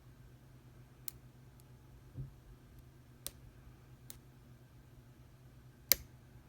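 Small sharp clicks of a lock pick and tension wrench working the serrated pins of a Mako 425 lock core: a few scattered ticks, a dull low knock a little past two seconds, and one louder click near the end.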